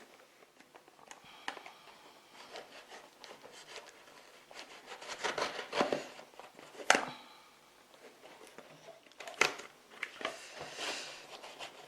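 Packaging being opened and rummaged through by hand: irregular rustling and crinkling, with a few sharp clicks or knocks. The loudest come about seven and nine and a half seconds in.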